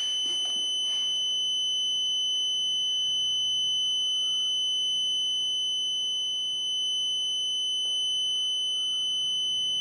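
Alarm buzzer on a replacement electric-unicycle battery BMS board, sounding a steady, high-pitched tone while its cell connections are being soldered on; it goes off once the board is partly connected, and gets louder with each added connection.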